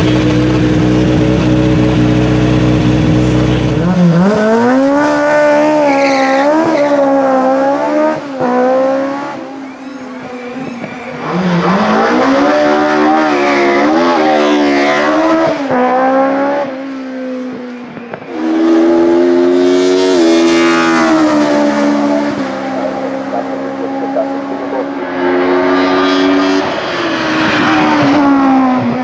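Gerent Opel Kadett C hillclimb race car's engine, under 2000 cc: held at steady high revs for the first few seconds, then revving up again and again in rising sweeps with quick drops between them as it accelerates hard and shifts up through the gears.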